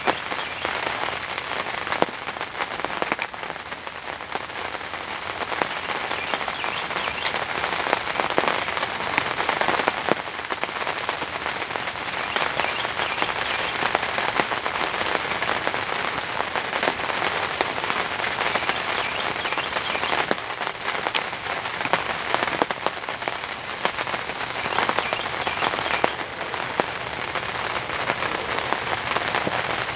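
Steady rain falling, an even hiss with scattered sharp ticks of individual drops striking close by.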